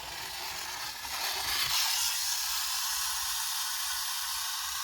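Pull-back toy Thomas engine running on its spring motor: a steady whirring hiss from the motor and wheels that grows a little louder about two seconds in.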